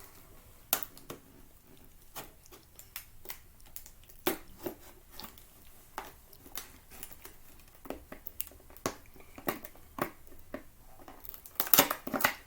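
Packaging being handled and pulled open: scattered crinkles, clicks and small tearing sounds, with a louder burst of crinkling and tearing near the end.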